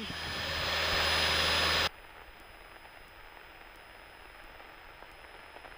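Single-engine light aircraft's piston engine and propeller at full takeoff power, a steady rushing noise coming through the cockpit intercom and rising slightly, then cutting off abruptly about two seconds in, leaving only a faint hiss.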